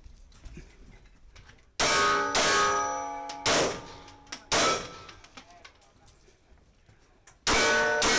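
Glock 19 9mm pistol firing about six shots in an uneven string, with a pause of about three seconds before the last two near the end. Steel targets ring with a clear clang after the first two and the last two shots, marking hits on steel.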